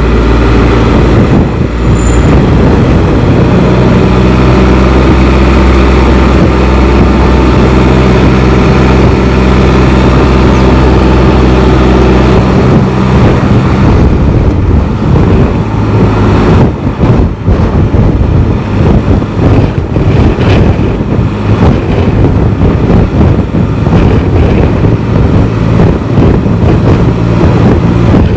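Can-Am Spyder on the move: a steady engine drone with an even hum for about the first twelve seconds, after which wind buffeting the microphone takes over, fluttering up and down in level.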